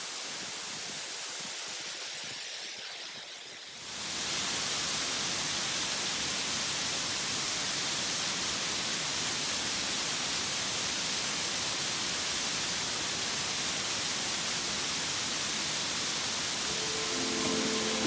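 Small waterfall pouring down a rock face, a steady rushing hiss that gets louder and brighter about four seconds in. Music comes in near the end.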